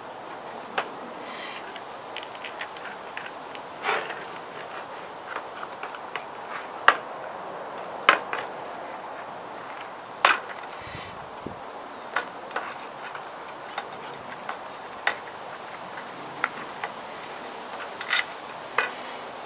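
Hands pulling an inner tube out of a road bike tire on its wheel: irregular light clicks and taps from the rubber and the rim being handled.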